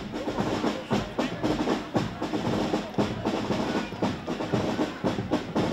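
A marching drum band playing a march on snare drums and bass drum, with a steady beat of strokes and drum rolls.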